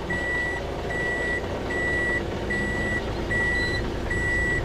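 Daihatsu Hijet Cargo kei van's reverse-gear warning beeper sounding six even, high beeps, a little more than one a second, as the van backs out of a parking space, over the low hum of its idling engine.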